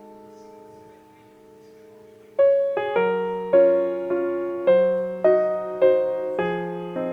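Background piano music: a soft held chord fades, then about two and a half seconds in the piano begins playing a brighter melody of struck notes, roughly two a second.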